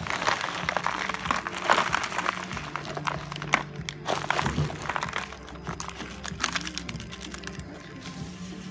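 Loose soil and small stones shifting and sliding on a cloth as it is handled and folded, a gritty rustle with many small clicks, heaviest in the first half and tapering off. Faint steady music underneath.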